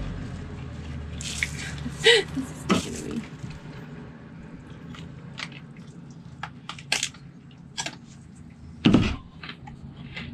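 Eating noises: scattered small clicks and taps of a fork in a takeout bowl of hot noodles, with one louder thump about nine seconds in.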